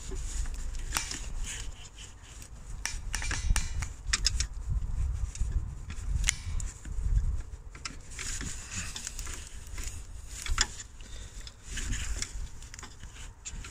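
A screwdriver clicking and scraping against the plastic electrical connector of a Range Rover L322's auxiliary heater water pump as it is pried to release it. There are scattered sharp clicks and knocks over a low rumble.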